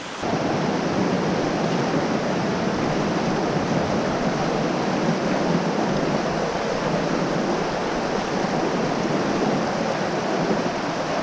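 Creek water rushing over rocks close by: a steady, even rush that starts suddenly, as at a cut, and holds level.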